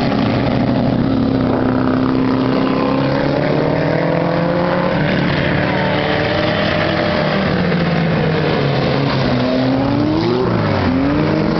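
Engines of old sedans racing on a dirt oval, their pitch rising and falling as they accelerate and back off. About ten seconds in, one engine revs up sharply and drops again.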